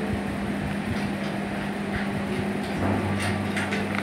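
A steady low hum over even background noise, with a deeper hum joining about three seconds in and a few faint clicks near the end.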